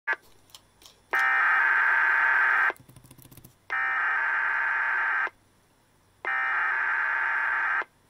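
Emergency Alert System SAME header for a Required Weekly Test: three bursts of shrill data tones, each about a second and a half long with about a second between them, heard through a radio's speaker. A click comes at the very start and a short crackle between the first and second bursts.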